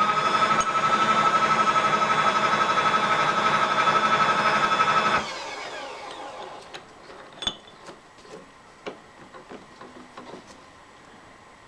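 A milling machine motor whirs up to speed and runs with a steady high whine for about five seconds, then is switched off and winds down in falling pitch, leaving a few light clicks and taps.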